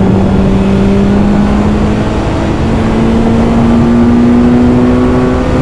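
BMW S1000R's inline-four engine pulling at Autobahn speed, its note rising slowly and steadily, under loud wind roar on the helmet microphone.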